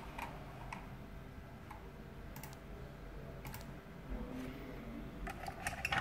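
Faint, scattered clicks of a computer keyboard being worked, with a quicker run of key clicks near the end.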